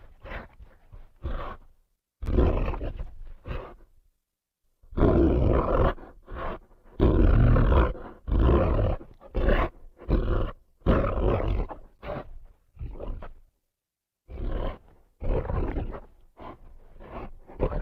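Sound-effect roars and growls made for Andrewsarchus, the extinct mammal, voiced as a large predator: a run of rough roars broken by short pauses, with a silent gap about four seconds in and another near fourteen seconds.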